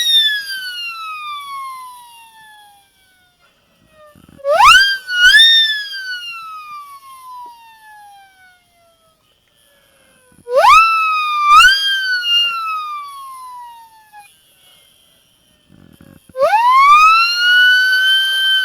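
A pitched wailing tone, heard four times about six seconds apart. Each wail sweeps up quickly and then glides slowly down over a few seconds; the second and third rise in two steps, and the last climbs more slowly.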